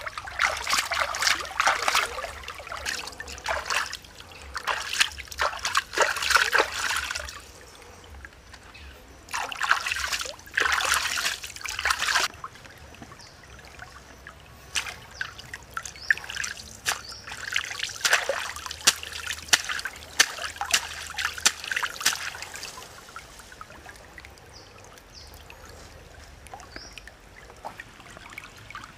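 Shallow stream water splashing and trickling as hands work in it, coming in irregular louder spells with quieter stretches of flowing water between.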